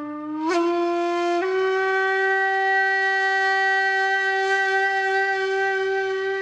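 A horn-like wind instrument blown in one long held note. It bends up in pitch about half a second in, steps up again about a second and a half in, then holds steady.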